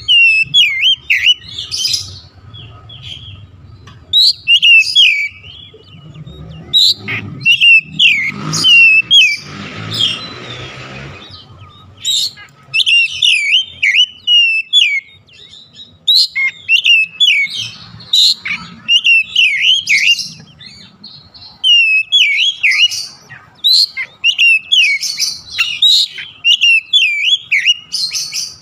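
Oriental magpie-robin singing: phrase after phrase of quick, high whistled notes, each phrase a run of short sliding notes. A hiss-like rasping noise lasts about two seconds around ten seconds in.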